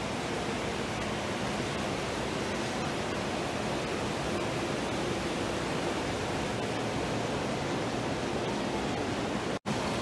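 Steady rush of churning water in a log flume's channel, an even hiss with no pauses. It cuts out for an instant near the end.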